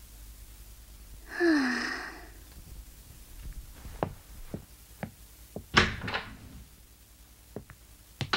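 Animated sound effects: a brief squeak falling in pitch about a second and a half in, then light footsteps on a wooden floor and a door thumping shut a little before six seconds in.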